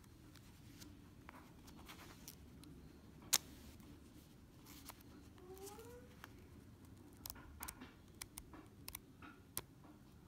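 Faint handling noises from a paper sticky-note flag pad being touched and a flag lifted: scattered small clicks and taps, one sharper click about a third of the way in and a quick run of clicks near the end. A faint short rising squeak sounds around the middle.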